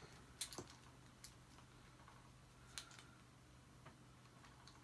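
Near silence broken by a few faint, sharp clicks and taps of hands handling the vacuum cleaner, over a low steady hum.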